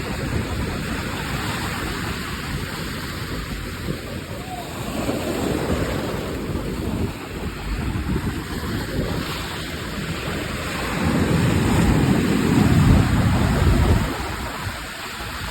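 Sea surf breaking and washing up the beach, with wind rumbling on the microphone. It swells louder for a few seconds near the end.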